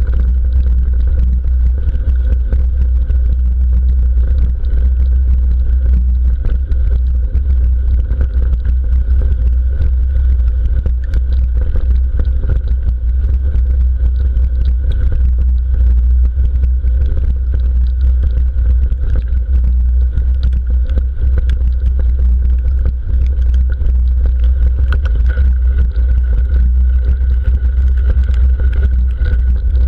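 Mountain bike riding fast over a rough grassy track, heard through a handlebar-mounted GoPro Hero3: a loud, steady low rumble of tyres and wind on the microphone, with scattered small rattles and clicks from the bike over bumps.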